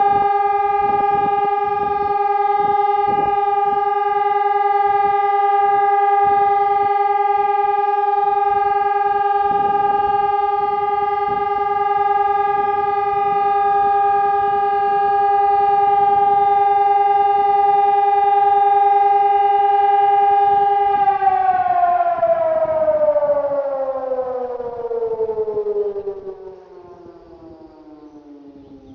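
EPS2400 electronic civil-defence siren sounding the all-clear (Entwarnung) signal, one long steady tone. About three-quarters of the way through, the pitch starts sliding steadily downward as the siren winds down, and near the end the sound drops away sharply, leaving a faint falling tone.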